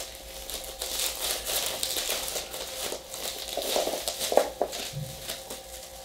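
Plastic bubble-wrap packaging crinkling and rustling in the hands as a small item is unwrapped from it, in quick irregular crackles.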